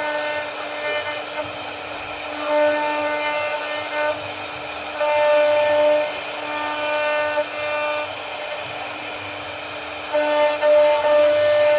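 CNC router spindle running with a steady whine while the bit carves a wooden door panel; in several stretches of a second or two the whine grows louder and richer as the bit bites into the wood.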